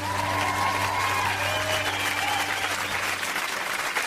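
Audience applauding, with a few voices calling out, as the band's final chord rings on and fades out about three seconds in.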